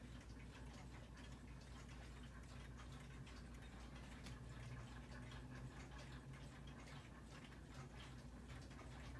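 Faint ticking from the battery-powered quartz movement of a Howard Miller Stafford mantel clock.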